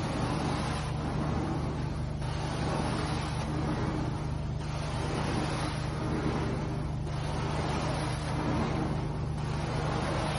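Carpet-cleaning extraction wand sucking air and water up its vacuum hose as it is drawn across the carpet. A rushing hiss swells and dips with each stroke, about every two and a half seconds, over a steady low machine hum.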